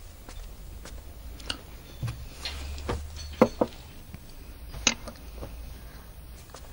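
Chopsticks clicking against porcelain rice bowls: scattered light clicks, the sharpest a pair about three and a half seconds in.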